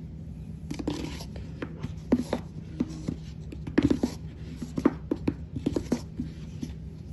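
Scattered light clicks and taps of things being handled in a kitchen, irregular and short, over a faint steady low hum.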